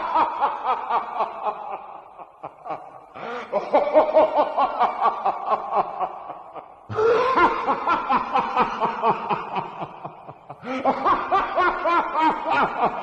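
Evil laugh sound effect: a voice laughing "ha-ha-ha" in rapid pulses. It comes in repeated bouts, each starting loud and fading off, with a new bout starting about every three and a half seconds.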